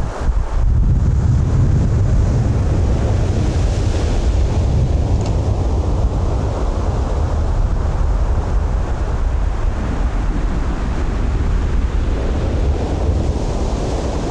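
Ocean surf breaking and washing up a sandy beach, a steady rushing wash, with strong wind buffeting the microphone as a heavy low rumble.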